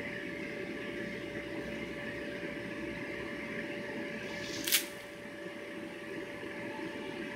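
Electric blower of an inflatable water slide running with a steady hum and a constant tone. A short sharp swish cuts in once about two-thirds of the way through.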